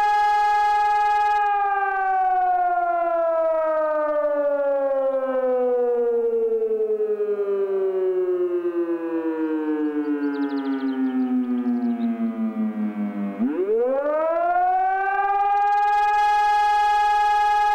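Fire-brigade rotary alarm siren. It holds a steady wail, then winds down slowly in pitch for about twelve seconds, then quickly spins back up to full pitch and holds it. The slow fall and rise back up is the 12-second break between tones of the German fire-brigade alarm signal.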